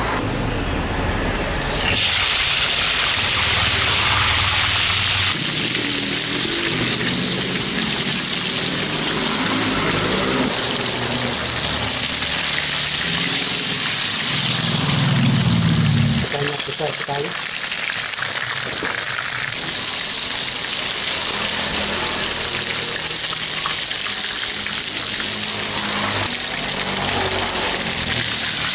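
Whole tilapia deep-frying in hot oil: a steady, even sizzle of bubbling oil.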